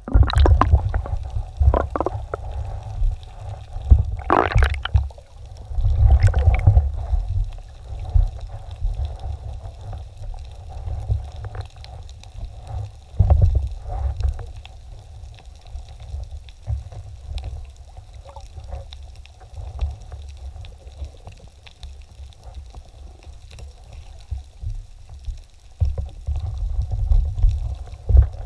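Muffled underwater sound from a camera in its housing: a continuous low rumble of moving water with gurgling and a few short bubble-like pops, busier in the first several seconds.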